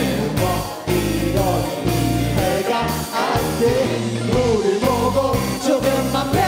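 Live rock band music with a sung lead vocal melody over keyboard and the band.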